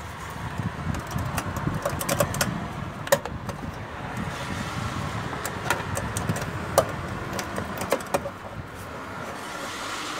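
Hand tools and metal parts clinking and knocking: many sharp, irregular clicks, with low rustling handling noise that is heaviest in the first few seconds.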